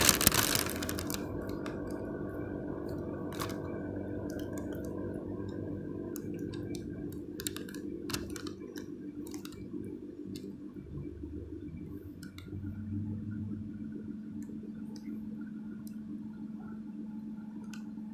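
Red CFR "Bobica" locomotive standing at the platform, giving a steady machinery hum with scattered clicks, after a brief loud rush at the very start. About twelve seconds in, a new steady low tone joins the hum and holds.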